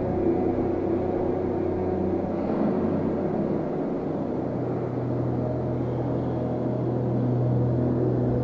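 Dark ambient drone music: sustained low tones over a steady noisy wash, the bass note shifting about five seconds in.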